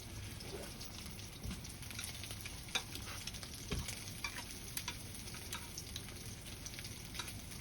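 Gopchang (intestines) sizzling as it cooks: a steady hiss with scattered crackling pops.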